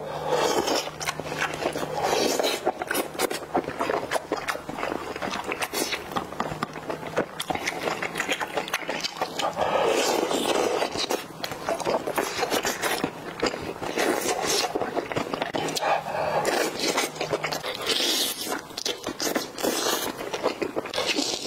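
Close-miked eating: slurping of wide glass noodles from spicy hotpot broth and wet chewing, a dense run of smacks and clicks that swells several times.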